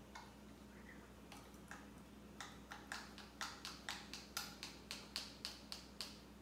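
A salt shaker being shaken over the dough makes a run of short sharp taps. They come sparse at first, then settle into a steady rhythm of about three a second. Little salt is coming out.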